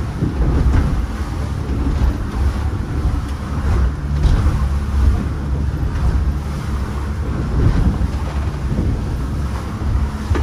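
Boat underway in choppy water: a steady engine drone with water washing and splashing against the hull, and wind buffeting the microphone.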